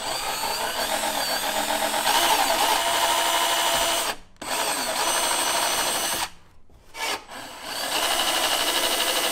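Cordless drill with a step bit boring a 5/16-inch hole through the front grille, its motor whining steadily. It runs in three long spells with short stops between, and a brief blip in the second pause.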